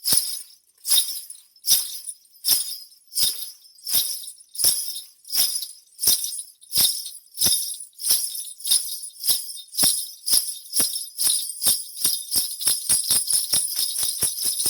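Small bells jingling in a steady beat, each jingle with a soft low thud, performed as a foley effect. The beat speeds up from a little over one a second to about four a second.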